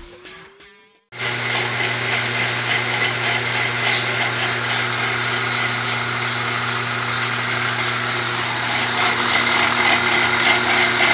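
Belt-driven power sprayer running steadily, its drive and piston pump making a constant hum with a hiss over it, starting about a second in after music fades out.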